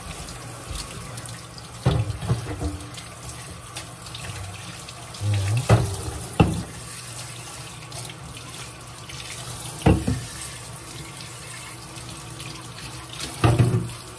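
Kitchen faucet running steadily into a stainless steel sink as aluminium beer cans are rinsed under the stream, with five sharp clunks of cans being set down and knocking against the sink and each other, two of them close together about six seconds in.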